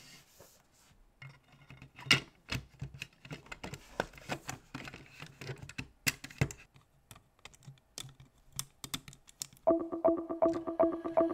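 Irregular clicks and taps of a diecast model car's plastic interior tub and metal body being handled and pressed together by gloved hands. Music with a steady beat starts near the end.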